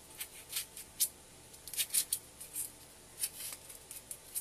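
A thin craft-knife blade carving and trimming a small block of polystyrene foam, about ten short, irregular scraping cuts, the sharpest about a second in and around two seconds in.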